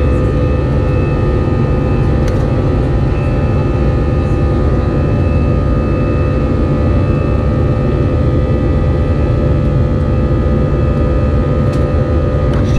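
Airbus A320's jet engines and rushing air heard from inside the passenger cabin during the climb after takeoff: a loud, steady rumble with a steady hum over it.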